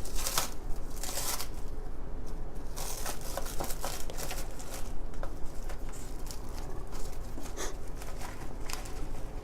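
Packaging of a raw half chicken being torn open and crinkled by hand, in a string of short rustling bursts.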